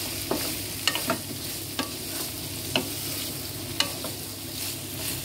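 Carrot strips, onion and ground pork sizzling in a nonstick frying pan as they are stir-fried, with a spatula knocking and scraping against the pan about once a second.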